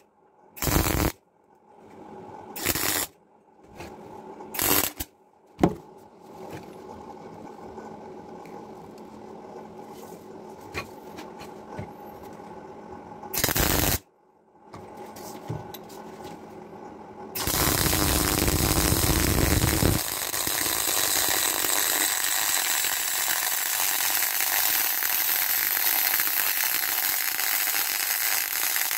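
MIG welder arc crackling as a 3 mm steel repair plate is welded onto the chassis rail. First comes a string of short tack welds, each a second or less, then another around fourteen seconds in. From about seventeen seconds on there is a continuous seam weld.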